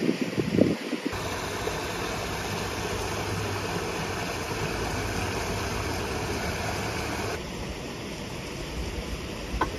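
Shallow stream running over rocks in a small riffle, a steady rushing of water, fainter from about seven seconds in. A few light knocks come in the first second.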